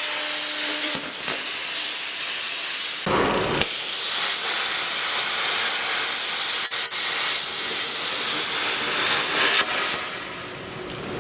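Plasma cutter arc hissing steadily while cutting, with a fuller, deeper rush about three seconds in, two very brief cut-outs about two-thirds through, and a softer hiss near the end.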